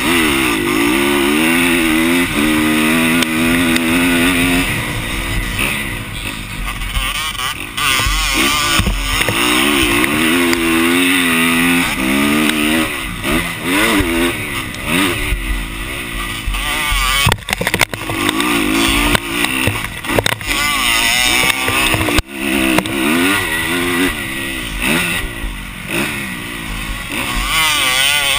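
Motocross dirt bike engine revving up and falling back again and again as the throttle is worked around the track, with wind rushing over a helmet-mounted microphone. A couple of sharp knocks come past the middle.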